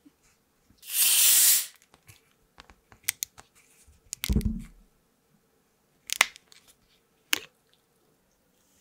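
Plastic bottle of Chilsung Cider soda twisted open, with a sharp hiss of escaping carbonation lasting under a second. A dull thump comes about four seconds in, then two sharp clicks.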